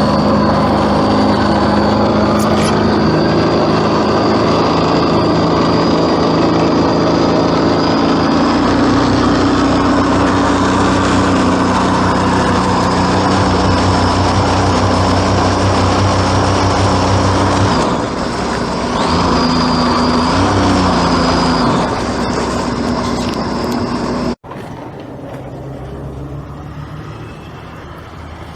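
Large engine running steadily under load, its pitch shifting a little a few times. It cuts off abruptly a few seconds before the end, leaving a much quieter background.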